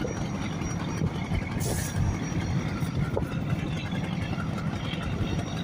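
River launch's engine running with a steady low rumble, with a short hiss about two seconds in.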